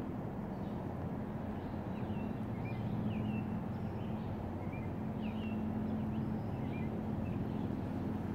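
Birds chirping in short calls over a steady low hum.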